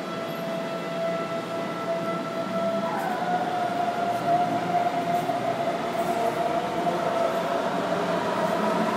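Underground metro train running, heard from inside the car: a steady electric motor whine that rises in pitch about three seconds in, over running noise that grows louder.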